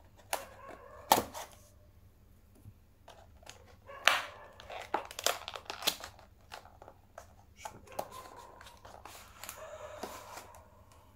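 Packaging of a phone accessory being opened by hand: crinkling and tearing, with scattered sharp clicks and taps, the loudest about a second in and around four seconds in.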